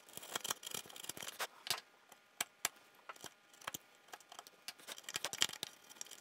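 Hand chisels paring by hand pressure in a half-blind dovetail socket, a run of irregular light scrapes and crisp snicks as wood fibres and small chips are sliced away. This is the final cleanup of the socket's corners.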